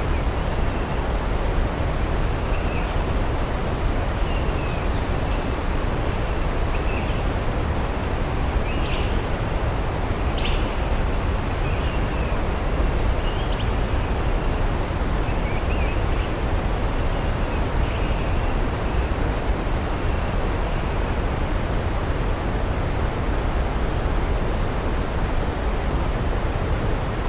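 Waterfall rushing steadily, with faint, distant birds giving short chirps and calls over it until about two-thirds of the way through.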